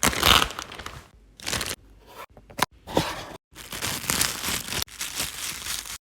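Sealed plastic photocard packaging being torn open and crinkled by hand, in a run of noisy rustling bursts with short gaps between them, cutting off abruptly near the end.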